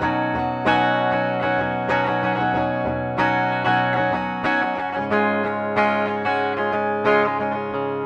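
Lavish CMRL-FL electric guitar played through its bridge pickup with a clean tone. Chords and single notes are picked every half second to a second and left ringing.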